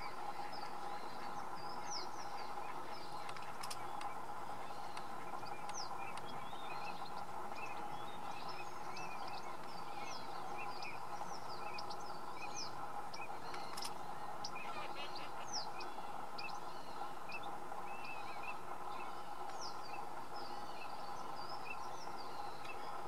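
Many small birds chirping and calling, short quick rising and falling notes scattered throughout, over a steady background noise.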